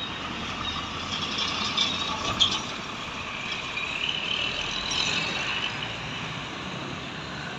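Steady road traffic noise from large vehicles such as buses and trucks, with a short sharp click about two and a half seconds in and a faint rising tone near the middle.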